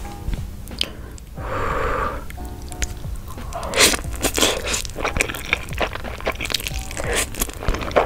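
Close-up slurping and wet smacking of noodles being sucked in from chopsticks and chewed, with many sharp mouth clicks starting a few seconds in, over background music.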